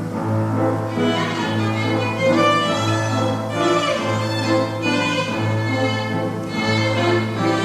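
Piano trio playing classical music: violin carrying the melody over cello and piano, with a low bass note sounded again roughly every second.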